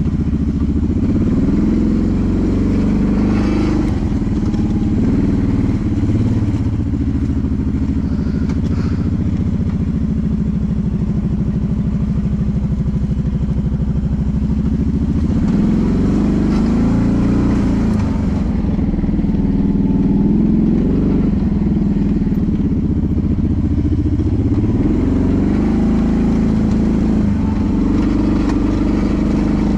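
Honda Rancher ATV's single-cylinder engine, bored out from 420 to 500, running under load, its pitch rising and falling again and again as the throttle is worked.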